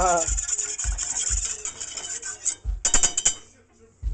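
Wire whisk scraping and clicking against a stainless steel saucepan, stirring milk into a roux for a cheese sauce. It falls quiet briefly near the end.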